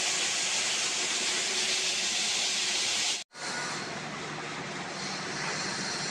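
Steady, hissing machinery noise in a granite stone yard, cut off abruptly about three seconds in and followed by a different, lower steady machine hum.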